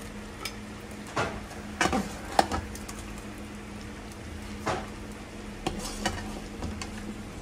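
Metal skimmer clinking and scraping against the rim of an aluminium stockpot and a ceramic plate as chunks of boiled meat are lifted out, half a dozen sharp clinks over a steady low hum.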